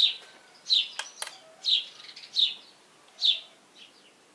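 A small bird chirping over and over: about six short high chirps, each falling slightly in pitch, roughly one every three-quarters of a second. A couple of sharp metal clicks come about a second in from hand work on the tractor engine's injectors.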